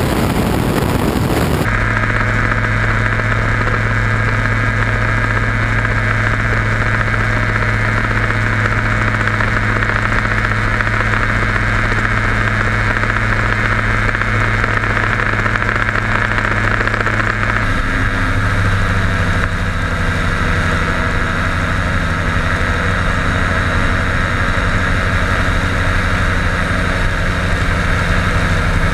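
Quicksilver Sport 2S ultralight's pusher engine and propeller running steadily in flight, heard from on board. It opens with a brief loud rush of wind on the microphone, and the engine note changes slightly about 18 seconds in.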